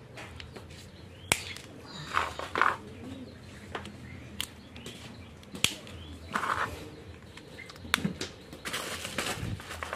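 Plastic Iron Man action figure being handled: its jointed limbs are bent into place, giving several sharp plastic clicks amid the rustle of fingers on the figure.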